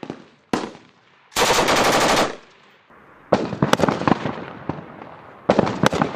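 Small-arms gunfire on a firing range. A single shot comes about half a second in, then a burst of rapid automatic fire lasting about a second, then a string of separate, irregularly spaced shots that picks up again near the end.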